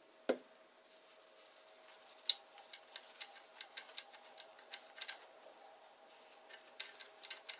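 A single knock near the start, then a run of small clicks and scratches as a wad of cotton is rubbed around the metal bobbin area and feed dogs of a Singer 401 sewing machine, pausing for about a second before a few more near the end.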